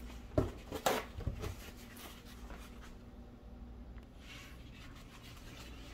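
Kitchen handling sounds as the steaks and plastic cutting board are moved: a few short knocks and scrapes in the first second and a half. After that there is only a faint steady hum.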